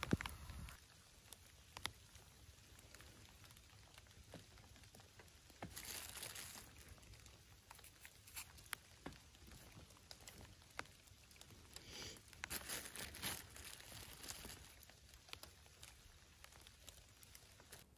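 Faint crinkling of a plastic bag and scattered small clicks as pieces of mushroom and vegetable are handled and pushed onto metal skewers. Louder rustling comes about six seconds in and again around twelve to thirteen seconds in. A louder patter of rain cuts off less than a second in.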